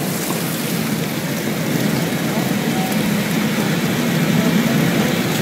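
A boat breaking through river ice, with broken ice floes and water churning and grinding steadily along the hull.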